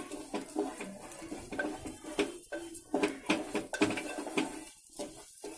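Wooden spatula stirring and scraping rice and moong dal grains around a metal pan as they roast in ghee. The scrapes and grain rattles come about two or three a second and die down near the end.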